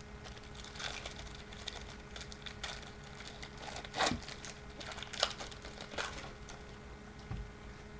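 Baseball trading cards being handled and flipped through by hand: light rustling and small clicks, with a few sharper snaps about four, five and six seconds in, over a faint steady hum.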